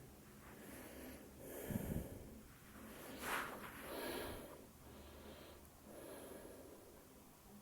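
Faint breathing sounds from a person, with a few soft breaths about two, three and four seconds in.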